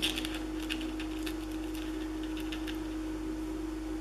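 Small clicks and crinkles of plastic film-strip ribbon and paper being handled on a scrapbook layout, thinning out after about three seconds, over a steady low electrical hum.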